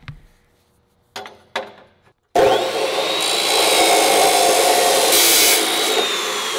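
Abrasive chop saw cutting through steel tubing. It starts suddenly about two seconds in and runs as a loud grinding cut with a high whine that sags slowly as the wheel bites into the tube. Before it come a couple of short knocks.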